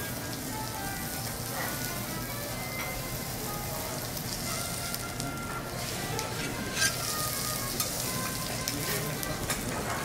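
Matsusaka sirloin steak sizzling steadily on a hot teppanyaki steel griddle. From about halfway through, a few sharp clicks of the knife and spatula against the steel come in as the steak is cut into pieces.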